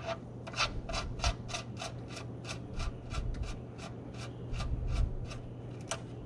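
Steel drain plug being spun by hand into the oil pan of a 1949 Willys CJ-3A: an even run of short rasping scrapes, about four a second, as the threads turn.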